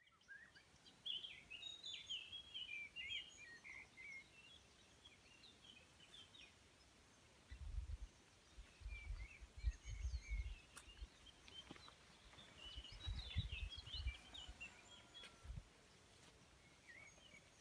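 Small songbirds singing in bouts of quick, chirpy phrases, with a faint outdoor hush between them. Through the middle of the clip there are several seconds of low rumbling on the microphone.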